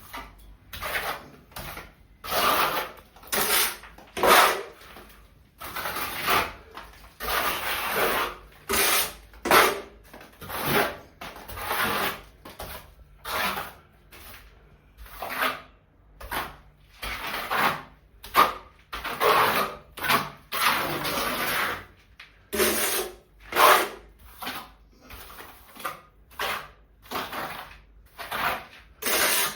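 Repeated rasping strokes of a hand tool worked against a surface, one or two a second and uneven in length.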